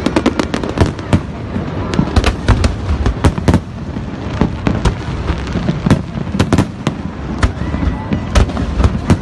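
Fireworks display: a rapid, irregular run of sharp bangs and crackles over a continuous low rumble.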